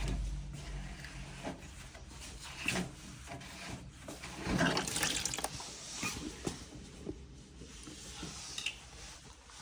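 Water running and splashing out of a Bosch washing machine that will not drain as it is let out by hand, with rubbing and knocking from handling. The water comes in uneven spurts, loudest about halfway through.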